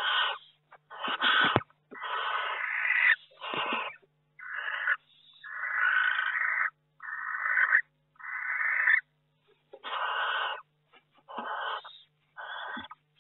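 Barn owls hissing: a series of harsh, rasping hisses coming about once a second, with a few low thumps among the first ones.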